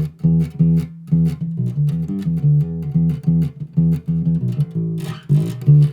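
Background music: plucked bass and electric guitar playing a quick, rhythmic riff.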